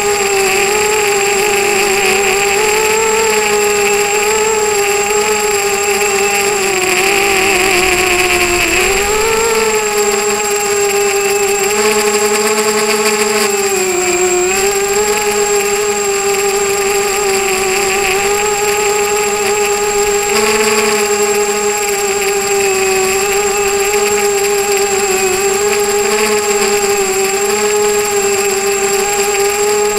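A ZMR250 quadcopter's four DYS 1806 2300KV brushless motors and propellers whining in flight, the pitch wavering constantly with throttle and dipping briefly about a third and halfway through. A steady high-pitched electronic whine sits underneath.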